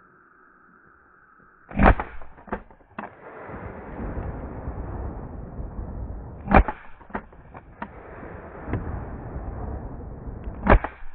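Three shotgun shots from a Stoeger M3500 12-gauge, about four to five seconds apart, each followed by a few fainter sharp cracks. A steady rushing noise fills the gaps after the first shot.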